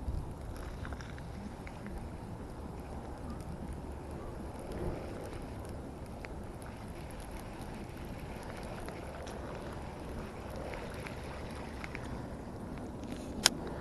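Steady low outdoor background rumble, with one sharp click near the end.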